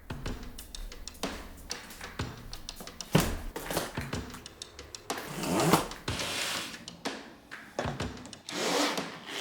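Custom mechanical keyboard parts being handled during assembly: a run of sharp clicks and knocks, with longer scraping and rubbing noises about five seconds in and again near the end.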